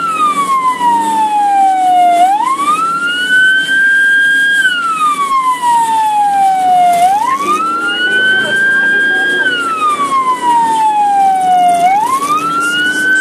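Ambulance siren wailing, heard from inside the ambulance. Each cycle sweeps quickly up in pitch, holds high for about two seconds, then slides slowly down, repeating roughly every five seconds, about three times here.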